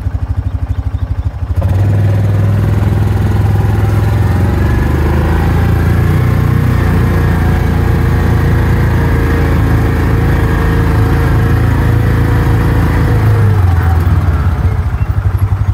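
Utility side-by-side's engine heard from the driver's seat: it picks up about a second and a half in and runs steadily under way, then eases back toward idle near the end.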